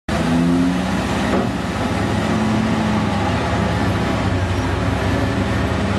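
Komatsu PC4000 hydraulic mining excavator and a haul truck running together with a loud, steady heavy diesel drone while the excavator loads rock into the truck's bed, with a brief rattle of falling rock about a second in.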